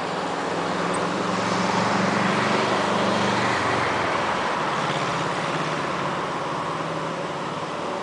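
Road traffic on a busy street: a vehicle passes, its engine hum swelling about two seconds in and easing off as it drops slightly in pitch. Underneath is a steady rushing noise in which the cooling fan of a digital billboard can be heard.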